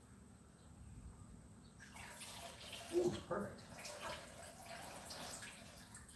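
Engine oil running and spattering into a drain pan under the Jeep during an oil change, starting about two seconds in, with a brief louder sound about three seconds in.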